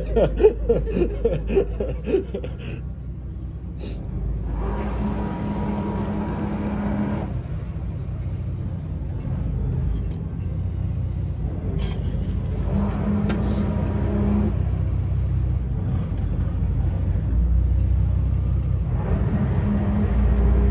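Steady low vehicle rumble, with a low hum that swells three times: about five seconds in, about thirteen seconds in, and near the end.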